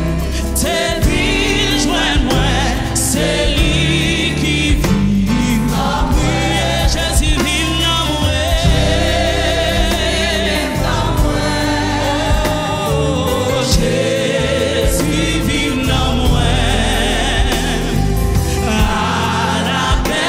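Live gospel worship music: an electronic keyboard and band playing, with singing voices.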